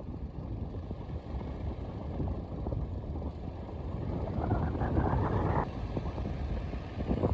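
Car driving along a paved road, heard from inside the cabin: a steady low rumble of engine and tyres, swelling briefly just after halfway.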